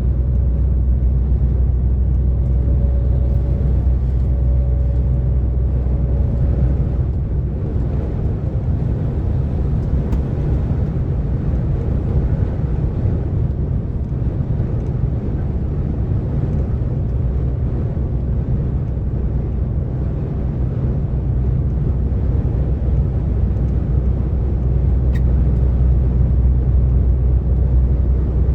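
DAF XF 460 lorry's diesel engine running steadily with road noise as the truck drives along the motorway, a continuous low drone. A faint steady whine sits above it for the first few seconds.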